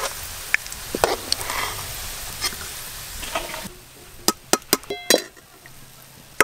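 Browned onion slices sizzling in hot oil in a steel karahi as a slotted spoon scoops them out. The sizzling drops away suddenly about two-thirds of the way in, followed by a quick run of sharp metallic clinks of the spoon against a steel plate.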